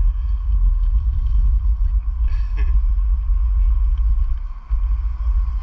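Wind buffeting the microphone: a steady low rumble that dips briefly near the end.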